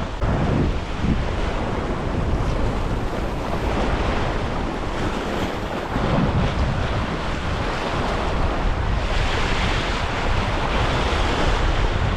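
Ocean surf washing against coastal rocks, with wind buffeting the microphone. The hiss of the surf grows stronger from about nine seconds in.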